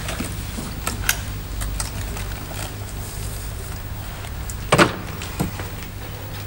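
Light clicks and handling noise as a leather briefcase is opened and papers are taken out. About five seconds in comes a sharper, louder click, a door latch as the door beside it opens. A steady low hum runs underneath.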